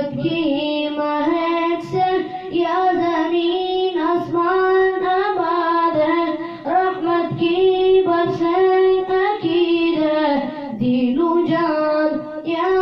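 A boy singing a naat solo into a handheld microphone, holding long, wavering notes with brief breaths between phrases.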